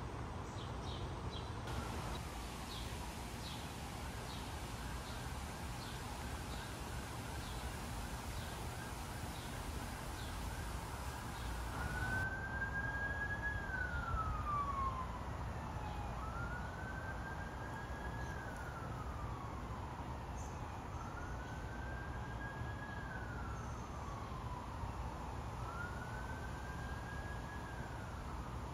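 An emergency vehicle's siren wailing: the pitch rises, holds high, then falls slowly, in cycles about four to five seconds long, coming in more clearly about twelve seconds in. Faint repeated high chirps sound in the first part.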